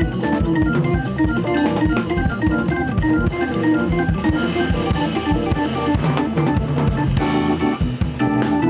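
Jazz combo playing: a Hammond B3 organ runs through quick short notes over held chords, with a drum kit played with sticks.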